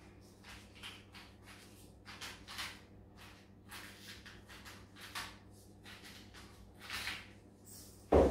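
Salt grinder being twisted to grind coarse salt, a series of short gritty grinding strokes about two a second, then a loud knock near the end as the grinder is set down on the wooden table.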